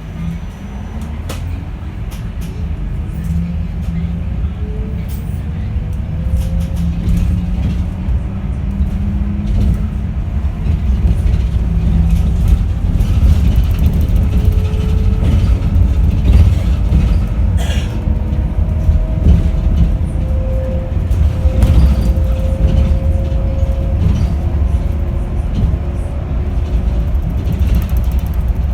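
Yutong E12 electric bus's permanent-magnet synchronous traction motor whining as the bus pulls away, the pitch rising over the first several seconds, then settling to a steadier whine over a loud low road rumble, with a few short clicks.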